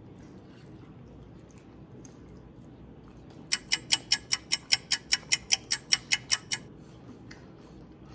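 Rapid, even ticking, about five ticks a second, that starts about three and a half seconds in and stops about three seconds later, over faint room noise.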